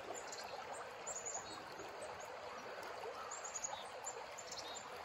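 River water running steadily over a shallow riffle, with two short clusters of faint high bird chirps, about a second in and again about three and a half seconds in.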